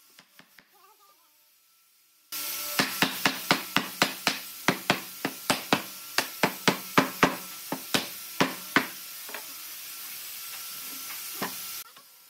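Hammer blows on a wooden table base: a quick run of about twenty sharp knocks over six seconds, three or four a second, then a few lighter ones. They sit over a steady hiss that starts and cuts off abruptly.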